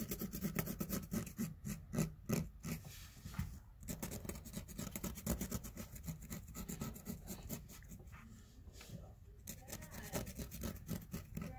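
Felt-tip marker scratching over a canvas tote bag in quick back-and-forth colouring strokes: a fast, continuous run of short scratches.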